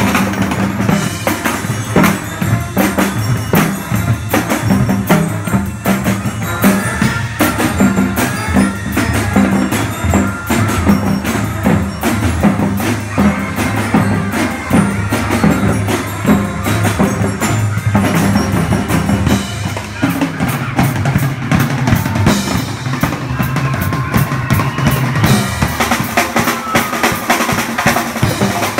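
School band playing: marching snare and tenor drums and a drum kit beat steadily under saxophones, clarinets and trumpets.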